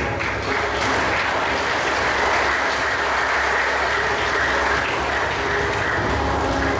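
Audience applauding: dense, even clapping that swells just after the start and then holds steady.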